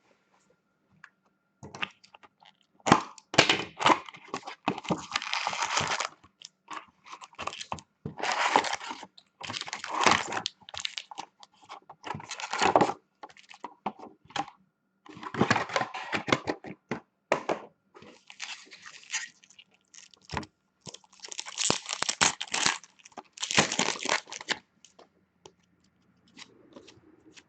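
Packaging being torn and crinkled open in a string of irregular rips and crackles: a sealed box of Upper Deck hockey card packs being unwrapped and its pack wrappers ripped open.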